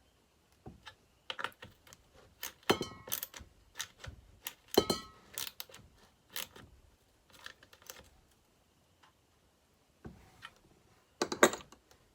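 Irregular light clicks, taps and clinks of hand tools and small metal chainsaw parts being handled, a couple of them ringing briefly. Quiet gaps fall between the strikes, and a cluster comes near the end.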